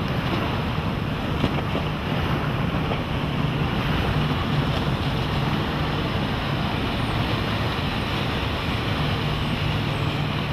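Motorboat engine running steadily at speed, a low drone under the rush of water and spray, with wind buffeting the microphone.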